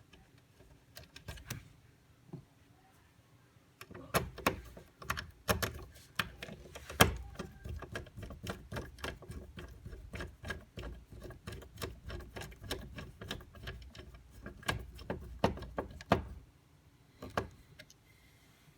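Dense, irregular clicking and knocking over a low rumble as parts are fitted into a pachislot machine's cabinet. A few scattered clicks come first, then the dense run starts about four seconds in and stops about three seconds before the end.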